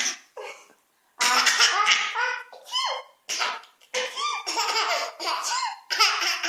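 A baby laughing hard in belly laughs, in several bouts broken by short pauses.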